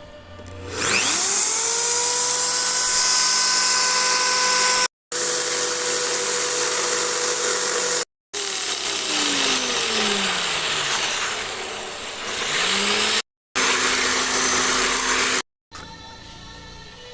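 Electric drill mounted as a mini wood lathe, its motor spinning up with a rising whine and running fast, then slowing down and speeding back up as its speed is varied. The sound cuts off abruptly several times, and near the end it gives way to quiet background music.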